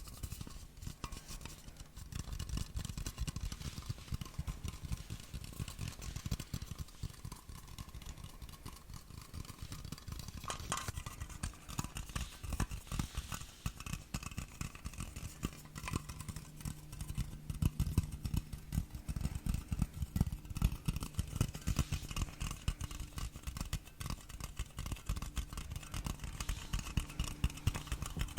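Fast, continuous tapping on a hard object close to the microphone, many light taps a second.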